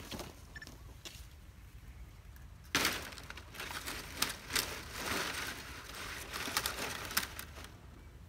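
Dry palm fronds rustling and crackling as they are handled and shifted. A loud burst of crackling starts about three seconds in and carries several sharp cracks before easing off near the end.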